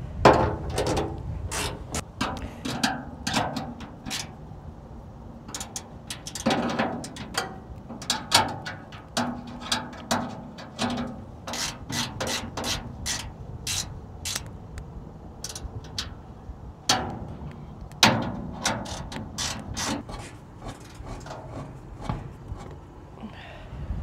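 Irregular clusters of sharp metallic clicks and clanks from a wrench and metal fittings as a spent automatic grease lubricator is worked loose and unscrewed from a bearing housing.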